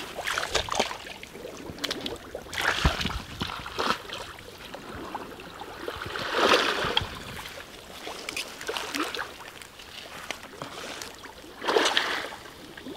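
Shallow pond water splashing and sloshing in irregular bursts as a person wades in and scoops with a woven basket.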